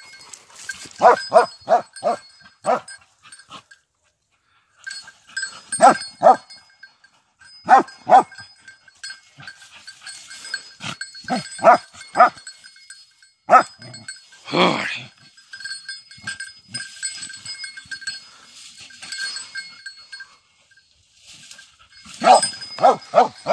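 Hunting dog barking in quick runs of several sharp barks while it worries a downed wild boar, with a longer, louder call near the middle. A faint steady bell-like ringing runs beneath much of it.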